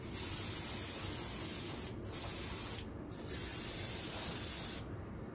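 Iwata Eclipse airbrush spraying paint: three bursts of hiss as the trigger is pressed and released, the first the longest, with short breaks about two and three seconds in.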